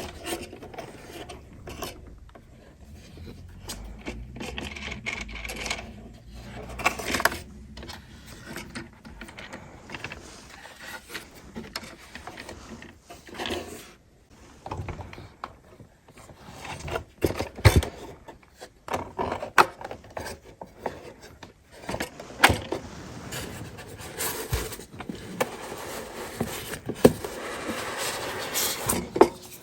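Handling noise: irregular rubbing and scraping, broken by scattered sharp clicks and knocks, as objects are handled and unpacked.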